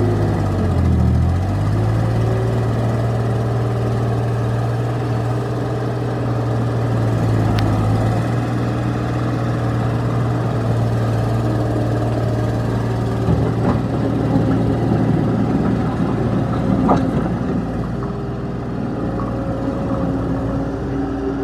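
New Holland C185 tracked skid steer's diesel engine running steadily. Its pitch dips briefly about a second in and then comes back, and a few light knocks are heard later.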